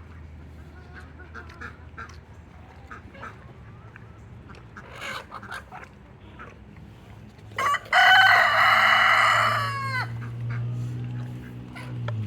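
A rooster crowing once, loud and about two seconds long, a little past halfway through, its end falling away. Before it, scattered short, soft chicken clucks.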